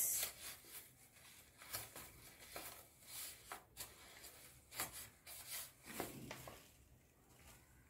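Faint, scattered rustling and light taps of a rolled coloured-paper lantern being pressed and turned by hand to set its glued seam.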